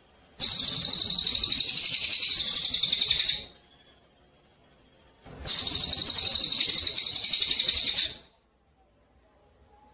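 A songbird delivering a loud, rapid, high-pitched trill twice, each lasting about three seconds, with a pause of about two seconds between them.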